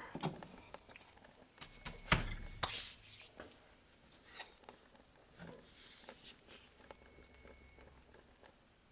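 Light handling sounds at a workbench: scattered small clicks and brief rubbing or scraping, with one sharp knock about two seconds in.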